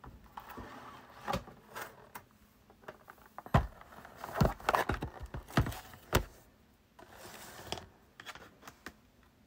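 Paintbrush rasping across paper in short strokes, with a run of sharp clicks and knocks in the middle, the loudest sounds here.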